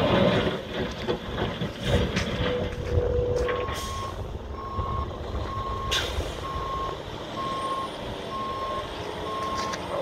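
Snowplow truck backing up: its diesel engine runs with a heavy low rumble, loudest at the start, and from about three and a half seconds in its backup alarm beeps at an even pace. A sharp clank is heard about six seconds in.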